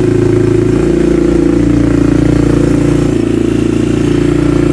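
Honda TRX400EX ATV's single-cylinder four-stroke engine running at a steady speed, its firing pulse rapid and even.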